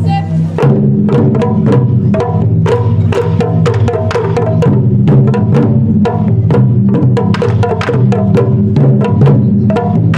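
Japanese taiko drums played in a fast, driving ensemble rhythm, many sharp strikes close together over sustained low tones.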